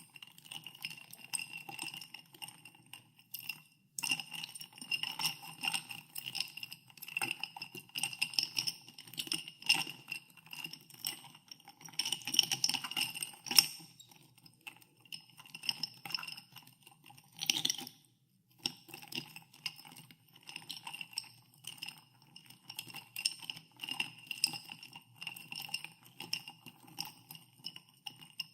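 Ice cubes stirred in a glass of soda water, clinking over and over against the glass, which rings with each knock. The clinking pauses briefly about four seconds in and again around eighteen seconds.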